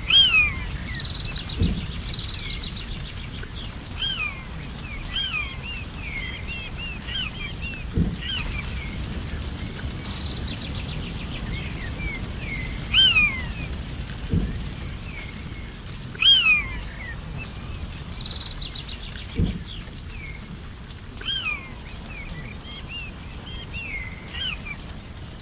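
Songbirds calling over steady low outdoor noise. One bird repeats a short call that sweeps down in pitch every few seconds, among other chirps and a few buzzy trills. A handful of dull low thumps are spread through.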